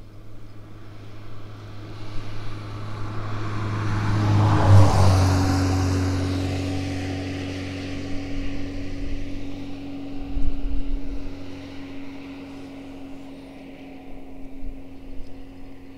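A motor passing by: an engine hum swells to its loudest about five seconds in, drops a little in pitch as it passes, and then slowly fades.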